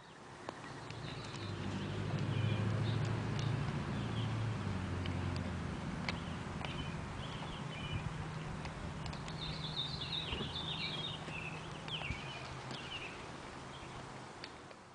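Birds chirping outdoors over a low, steady hum, with a few faint clicks.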